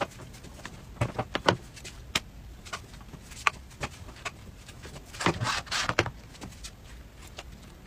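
Scattered light clicks and taps as an electric crepe pan and the thin pancakes are handled, with a short scraping rustle about five seconds in.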